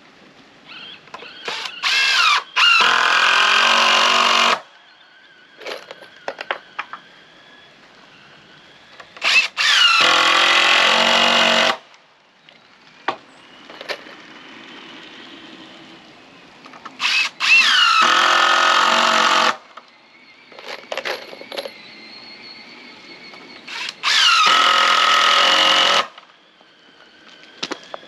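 Power drill driving screws into lumber in four runs of about two seconds each, each run preceded by a couple of short trigger blips.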